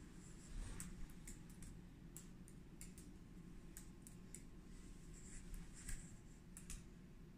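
A small dog's claws clicking faintly and irregularly on a hard tiled floor as it walks about.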